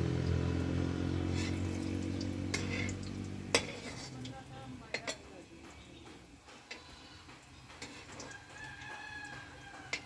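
A rooster crowing near the end, one drawn-out call. Before it, a low steady hum dies away about three and a half seconds in, with a few sharp clicks scattered through.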